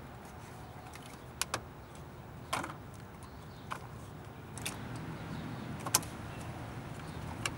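Scattered sharp clicks and light clatter of a screwdriver and plastic steering-column trim being worked loose under a Mazda Miata's dash, about half a dozen separate clicks over a low steady background.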